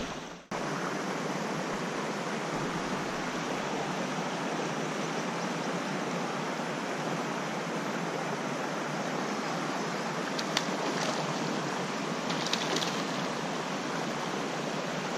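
Creek water flowing over a shallow riffle, a steady, even rush.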